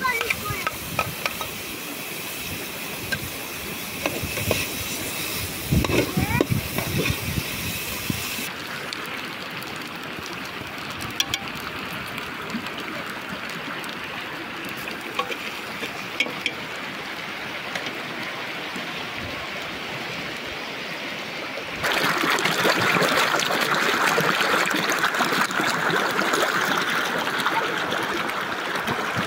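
A stream running, heard as a steady rush of water, with brief voices in the first part; the water gets louder and brighter near the end.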